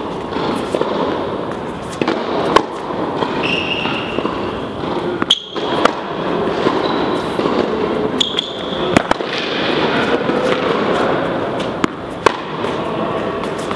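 Tennis ball being hit with a racket and bouncing on an indoor hard court: sharp pops at irregular intervals, a second or more apart, with a few short squeaks from shoes on the court surface.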